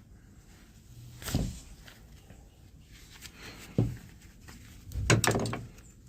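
Knocks and clatters from hands working on the machine: a knock about a second in, a sharp knock just before four seconds, and a louder cluster of rattling knocks around five seconds in.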